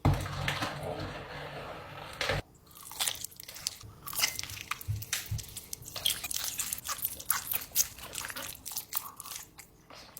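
Someone biting into and chewing a giant sour candy, a long run of crisp crunches close to the microphone.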